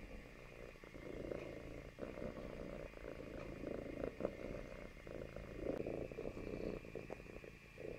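Domestic cat purring close up as it dozes nuzzled against a person, the purr swelling and fading with each breath about every two seconds.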